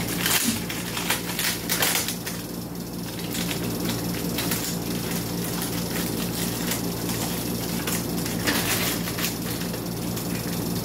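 Hands moving wires and connections inside an opened automatic voltage regulator: scattered clicks and rustles of handling over a steady low hum.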